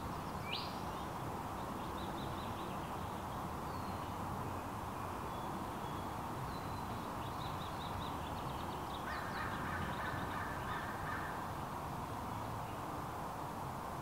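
Outdoor garden ambience: a steady background hush with birds chirping and calling on and off, high-pitched, including a quick run of notes about nine seconds in.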